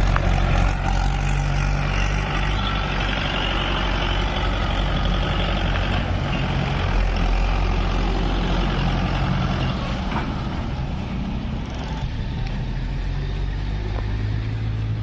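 Mahindra 575 tractor's diesel engine running steadily under heavy load as it pulls a trailer piled high with sugarcane, with tyre and road noise. The sound is loudest in the first second and eases off a little over the rest.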